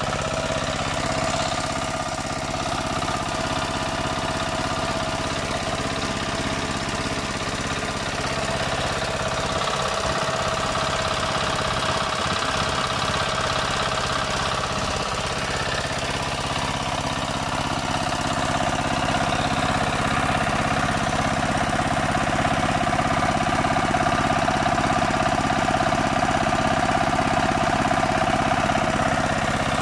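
12 hp single-cylinder diesel engine running steadily, driving a 3 kW alternator, slightly louder in the second half.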